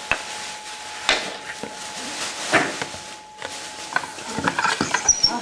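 Wooden maigiri pump fire drill working: its spindle grinds in a charred socket of a wooden hearth board, with wooden knocks about a second and two and a half seconds in and a quick run of clicks and rattles near the end.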